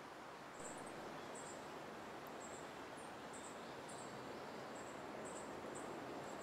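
Outdoor background: a steady hiss with faint, short, high-pitched chirps from a small animal, irregularly spaced at roughly two a second.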